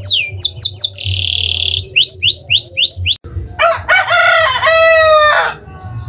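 Domestic canary song: rapid rolls of repeated falling whistled notes, a buzzy trill, then a run of rising notes. After a sudden break about three seconds in, a rooster crows once, a long crow in several parts lasting about two seconds.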